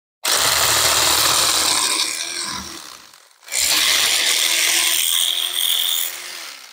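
Electric fillet knife running as it cuts a red drum fillet away along the backbone, in two runs: the first starts suddenly just after the start and dies away about three seconds in, and the second starts just after and fades out near the end.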